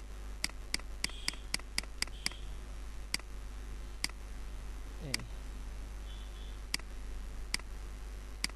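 Computer mouse clicking: about a dozen sharp single clicks, quick at first, about four a second, then spaced out, as the clone stamp tool is used. A steady low hum runs underneath.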